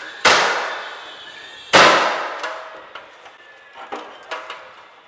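Finish nail gun firing twice into a trim board, about a second and a half apart, each shot sharp and ringing away over about a second, followed by a few faint clicks near the end.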